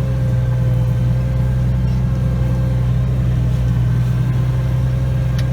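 Tractor engine running steadily at an even speed, a constant low hum.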